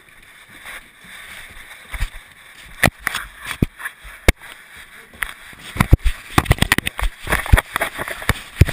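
Knocks and clicks from a GoPro camera clipped to a German shepherd's collar as the dog moves: a few separate knocks, then a rapid, irregular clatter in the second half.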